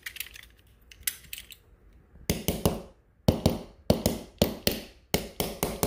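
Knuckles knocking on a drywall wall to test how solid it is. A few light taps come first, then from about two seconds in a run of firmer knocks in quick pairs and triples.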